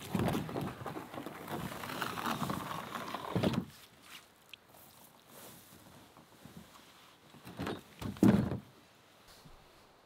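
Canoe hull scraping and dragging over the grassy shore for about three and a half seconds as it is hauled out of the water, then two knocks about eight seconds in, the second the loudest, as the canoe is handled and set down.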